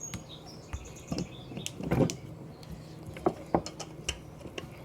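Scattered light taps and clicks of Play-Doh tools, rolling pins and plastic knives, on a table, with a few faint high chirps near the start.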